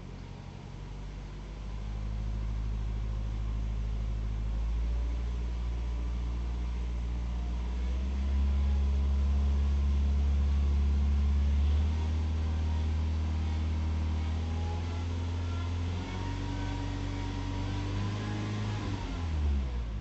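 Citroën C4 1.4 VTi four-cylinder petrol engine running cold, its speed stepping up and down several times. Near the end all its tones fall together as it winds down. The owner reports a rhythmic rubbing noise from this engine for the first few minutes after a cold start.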